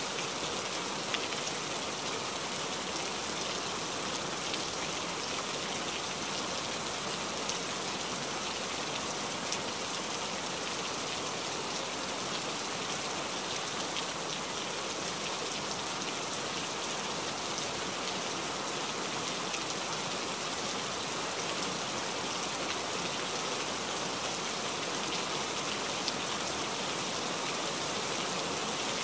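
Steady rain: an even hiss of falling rain with scattered sharper drop ticks, unchanging in level.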